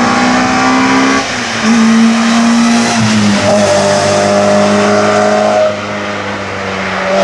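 Hillclimb race car's engine running hard at high revs, a steady high note broken by short drops in level about a second in and again near six seconds.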